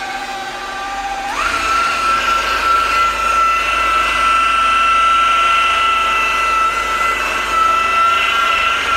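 Electric power tool motor running with a steady whine. About a second in it speeds up, and the whine rises quickly in pitch, then holds steady at the higher speed.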